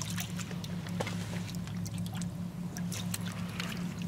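Water trickling and dripping into a rocky tide pool as it is poured from a kelp stalk and scooped by hand, with small splashes and drips. Under it runs a steady low motor hum with an even pulse.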